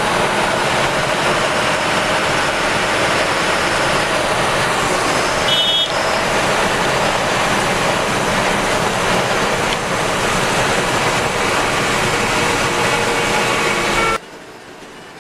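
Ashok Leyland bus engine and road noise heard from the driver's cabin while the bus runs at speed on the highway, loud and steady. A brief high tone sounds about five and a half seconds in. Near the end the sound cuts off abruptly to a much quieter steady noise.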